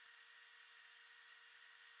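Near silence: faint steady room tone with a low electrical hum.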